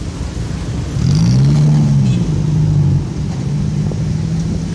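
Motorcycle engine revving up about a second in, easing back after a couple of seconds and then running steadily, over a low rumble of wind and road noise from riding.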